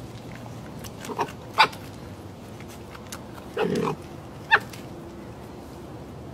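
Red fox calling in short, sharp yelps: a few quick ones in the first second and a half, then a longer, lower call and one more sharp yelp near the middle.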